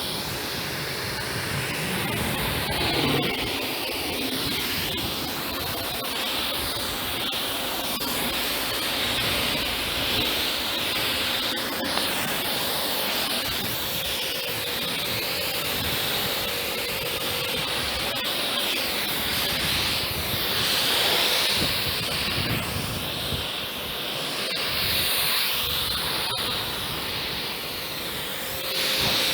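Kärcher K7 pressure washer spraying a steady jet of water, a hiss that swells and eases a little as the spray moves, with a faint steady hum underneath.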